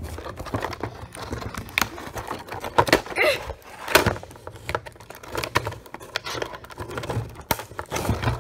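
Cardboard packaging and hard plastic toy-train pieces being handled and tugged at: irregular rustling and scraping with many sharp clicks and knocks.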